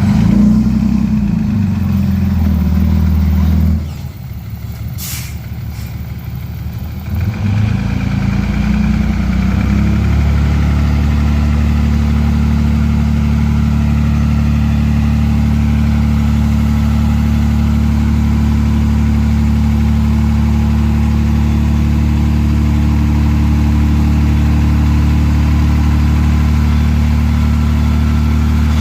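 Heavy diesel machinery engine running: it drops to a lower, quieter note about four seconds in, with a single sharp click, then climbs back and runs steadily from about ten seconds on.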